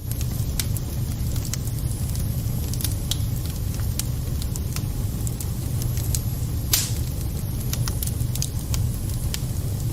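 Wood fire burning in a fireplace: scattered sharp crackles and pops over a steady low rumble, with one louder pop about two-thirds of the way through.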